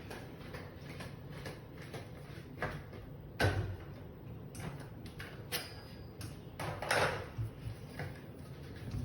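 Scattered knocks and clatters of objects being handled, the loudest about three and a half seconds in and again about seven seconds in.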